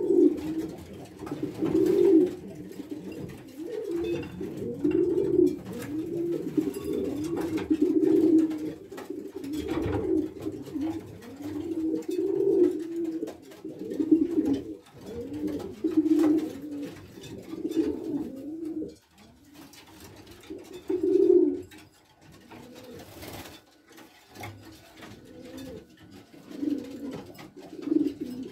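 Racing pigeons cooing over and over, low rolling coos every second or two, with a lull a little past the middle broken by one loud coo. A newly paired cock courting his hen.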